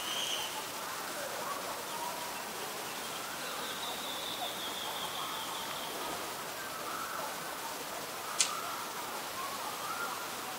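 Outdoor ambience with a steady hiss and distant birds calling in drawn-out notes, and one sharp click about eight seconds in.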